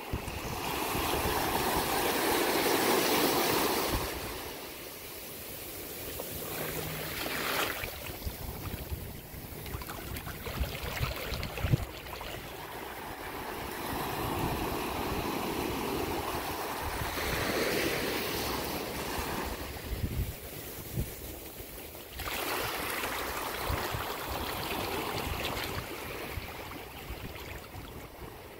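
Small ocean waves washing on the shore, swelling and fading in long surges, loudest in the first few seconds, with wind buffeting the microphone in low thumps.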